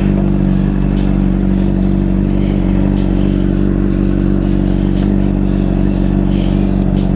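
Honda CBR600RR inline-four motorcycle engine running loud and close at a steady, unchanging speed.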